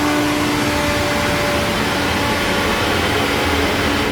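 An electric blower running steadily at full speed, forcing air through a clothes-dryer vent duct to clear out lint. It starts to wind down right at the end.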